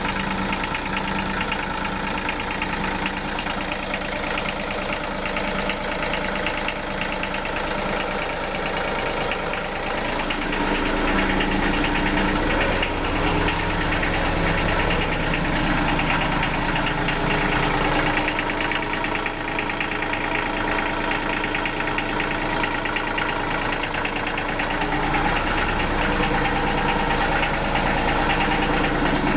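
Denyo DCA-15SS-N generator's 1.6-litre three-cylinder Nissan diesel engine running unloaded, about a minute after its first cold start in years. The note changes slightly a few times.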